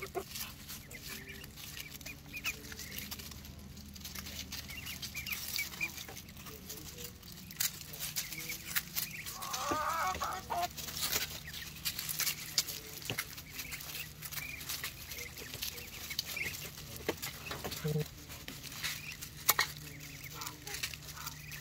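Muscovy ducklings and a hen foraging in dry leaves: scattered rustling and pecking clicks, with the hen clucking now and then and a cluster of calls around halfway through.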